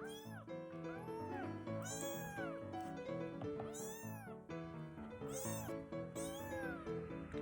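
A roughly three-week-old kitten mewing repeatedly, high short mews that rise and fall in pitch, about seven in all, over background music.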